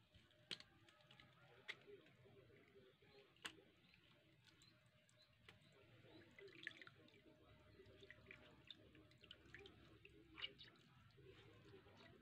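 Faint dripping and trickling of liquid fertilizer straining through a mesh cloth as the pulp is squeezed out over a bucket. A few faint sharp ticks stand out, the clearest about half a second in and near the end.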